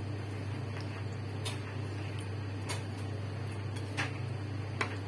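Chopsticks tapping and scraping on a ceramic plate while mixing chicken livers in oyster sauce and cornstarch: four sharp clicks, the loudest two near the end, over a steady low hum.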